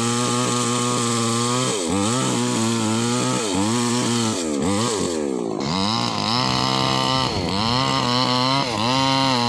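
Chainsaw with a 22-inch bar running at full throttle while cutting into a mahogany trunk near its base. The engine note dips and picks back up several times as the chain bites into the wood.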